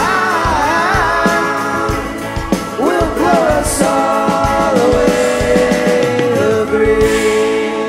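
Live indie rock band with electric guitars, keyboard and drums playing the closing bars of a song, with singing. From about five seconds in one note is held steady while the drums drop out near the end.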